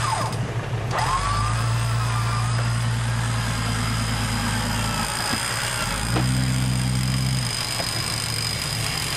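Electric winch on an off-road Jeep's front bumper running in two pulls, about four seconds and then about a second and a half, each starting and stopping abruptly, hauling the vehicle forward through deep mud. A steady high insect drone runs underneath.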